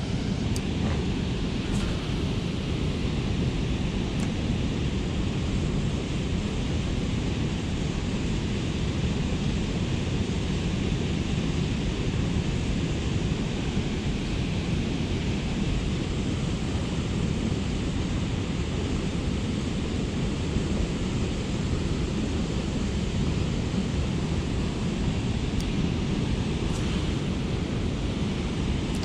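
Steady rushing of a fast river current, even in loudness throughout, with a few faint clicks about two and four seconds in and again near the end.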